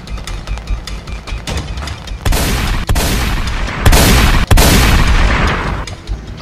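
Four loud gunshots in quick succession, each starting sharply and trailing into a long rush of noise, the last fading out over about a second. A fast ticking beat comes before them.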